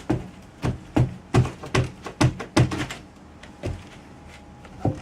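A quick irregular run of dull knocks and clunks, about eight in the first three seconds and one more near the end, as metal tools are rummaged through and handled.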